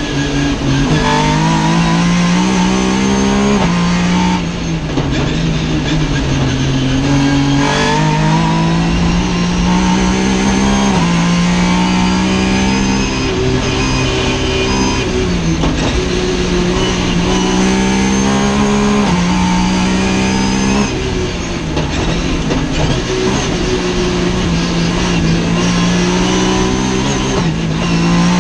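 Race car engine revving hard from inside the stripped cabin, its pitch climbing under acceleration and dropping sharply at each gear change or lift off the throttle, several times over.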